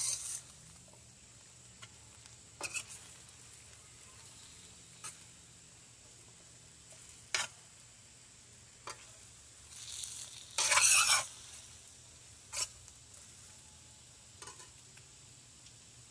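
Chicken and red onion sizzling in a stainless steel skillet, with a metal spoon clinking and scraping against the pan every few seconds as the food is stirred. The loudest scrape comes about two-thirds of the way through.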